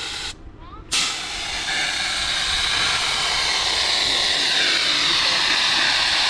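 Air hissing steadily through an inline inflator gauge and hose at an off-road tyre's valve while the tyre pressure is set. The hiss breaks off briefly just after the start and comes back suddenly about a second in.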